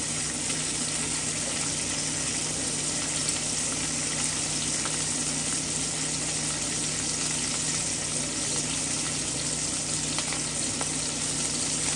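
Food frying in hot oil: a steady sizzle with scattered faint crackles, under a steady low hum.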